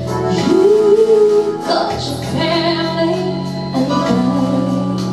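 A woman singing over instrumental backing, holding long notes that bend and slide in pitch.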